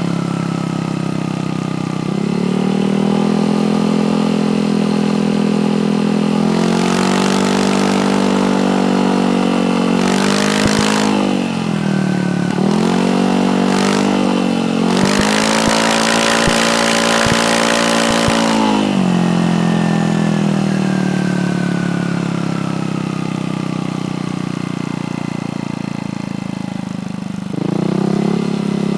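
Motorcycle running through an Exos R6 aftermarket exhaust with its silencer insert removed, revved several times in short blips and one longer held rev about halfway through. It then drops back to a steady idle for several seconds before revving up again near the end.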